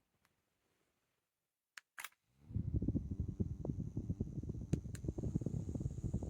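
Two clicks, then a JISULIFE mini handheld fan starts up and runs: a steady high motor whine over a loud, fluttering low rumble of air from the blades buffeting the microphone.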